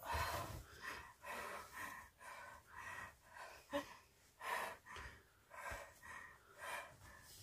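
A woman breathing hard in pain: quick gasping breaths, about two a second.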